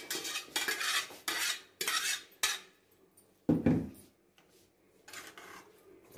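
A spoon stirring and scraping in a pot of chicken curry: about five quick scraping strokes in the first two and a half seconds, then fainter scrapes. A short, louder, low sound comes about three and a half seconds in.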